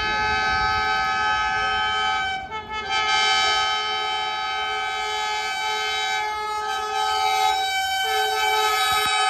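Vande Bharat Express electric trainset sounding its horn in long, steady blasts as it approaches at speed, with a short break about two and a half seconds in.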